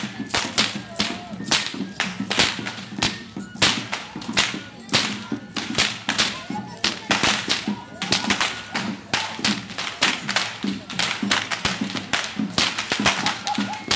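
Whips cracked again and again by tlacololero dancers: sharp, loud snaps, two or three a second in an uneven, overlapping rhythm.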